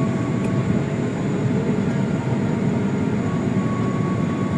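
Steady cabin noise of a Boeing 777 airliner on the ground after landing: an even low rumble with a faint steady whine above it.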